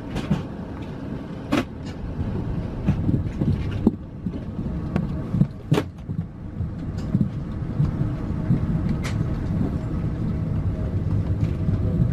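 Steady low rumble of an Airbus A380's cabin while the aircraft is parked at the stand, with scattered short clicks and knocks, about five of them.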